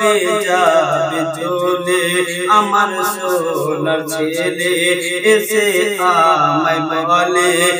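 A man singing a Bengali Islamic gojol (devotional song) solo, in long, drawn-out melodic phrases with wavering, ornamented notes.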